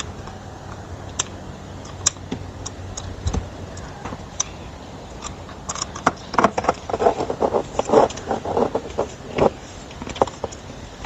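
Hands working on the plastic and metal parts of a kids' electric ride-on car during assembly: scattered sharp clicks, then about halfway through a dense run of rapid clicking and rattling for three or four seconds.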